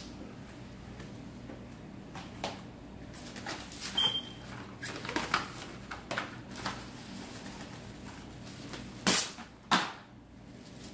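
Plastic cling wrap being pulled off its roll and handled: faint rustles and clicks, then two short, loud crackles about half a second apart near the end.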